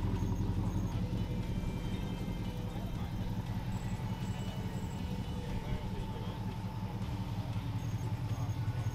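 Ford FPV GT sedan's V8 engine idling steadily, a low, evenly pulsing sound.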